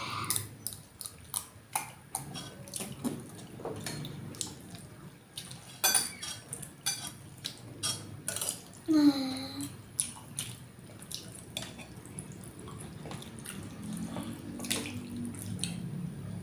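Spoon and fork clicking and scraping against a plate and soup bowl, with wet eating sounds of sour fish soup, and a short falling hum about nine seconds in.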